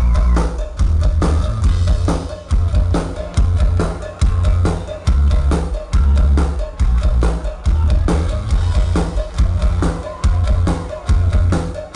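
Live rock band playing loud, with a drum kit and heavy bass keeping a steady beat.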